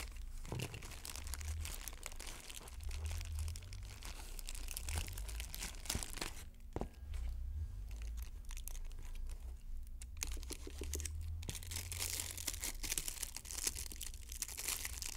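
Clear plastic packaging around a battery acid pack being torn open and crinkled by hand, an irregular crackling with scattered sharp snaps.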